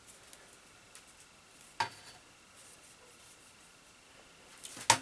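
Light handling sounds of wooden sticks and a hot glue gun on a workbench: a sharp tap about two seconds in and a louder knock near the end, over a faint quiet background.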